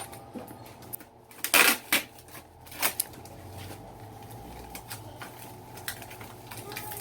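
Packaging being handled and pulled open: scattered rustles and crackles with a few sharp clicks, the loudest a short burst of crinkling about a second and a half in.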